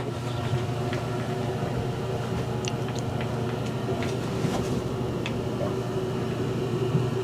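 Steady low mechanical hum, even in level throughout, with a few faint clicks scattered through it.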